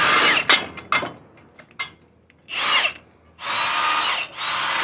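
Handheld power tool with a 17 mm socket running in several short bursts of about half a second to a second, backing out the two bolts that hold the bumper bracket.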